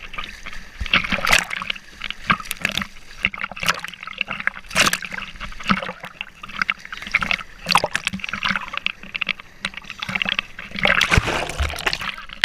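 Sea water splashing and spraying against an inflatable towed sofa boat as it is pulled over the waves, in quick irregular splashes.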